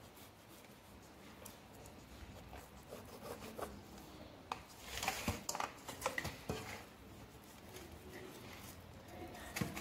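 Kitchen knife scoring the skin of a raw whole chicken in a stainless steel bowl, with scattered soft scrapes and clicks of the blade and handling. The sounds come thickest around the middle, with one more click near the end.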